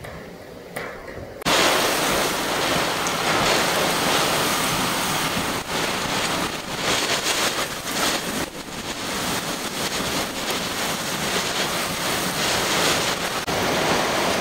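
Hurricane Laura's wind and driving rain, a loud rushing noise that swells and dips with the gusts and buffets the microphone. It is much quieter for the first second and a half, then jumps suddenly to full strength.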